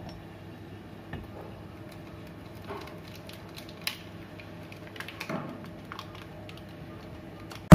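Pieces of a chocolate bar being broken off by hand and dropped into a glass bowl: a few faint scattered clicks and taps, over a low steady hum.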